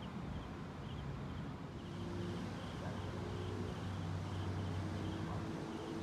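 Outdoor ambience: a low steady hum that firms up about two seconds in, with a faint high chirp repeating about once a second.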